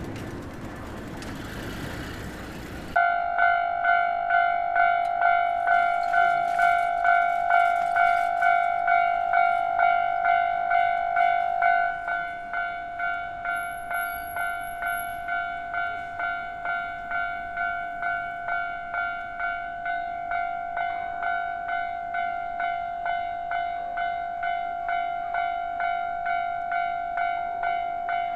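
Japanese electronic level-crossing warning bell ringing, a steady pitched dinging about twice a second. It starts sharply about three seconds in, right as a rushing train-like noise cuts off, and turns quieter about twelve seconds in.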